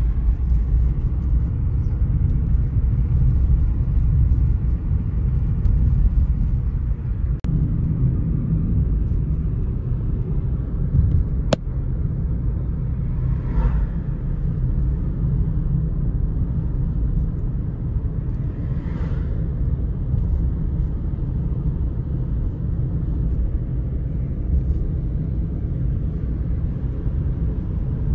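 Steady low road and engine rumble of a car driving at speed, heard from inside the cabin, with one sharp click a little before halfway.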